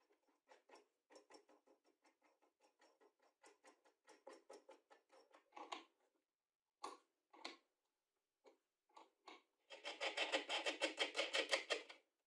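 Steel nuts being spun down threaded bolts and turned with a wrench: runs of light rapid clicking, about five or six a second at first, then a denser, louder run of about ten a second near the end.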